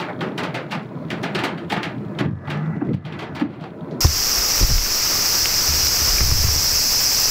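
Wet woodland after rain: irregular drips and light clicks, with a low cooing call among them. About four seconds in the sound changes abruptly to a steady hiss under a constant high insect drone.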